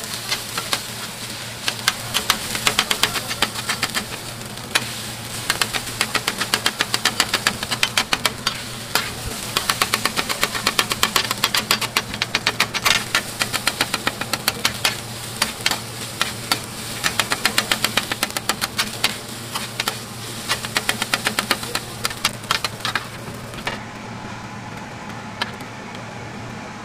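Steel spatulas chopping and scraping fried rice on a hot flat-top griddle, clacking rapidly against the metal in bursts over a steady sizzle. Near the end the clacking stops and only the sizzling of food on the griddle goes on.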